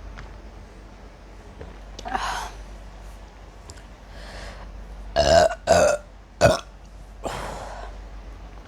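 A woman burping from soda gas: three loud, short burps in quick succession about five to six and a half seconds in, with softer, breathier burps or exhales before and after.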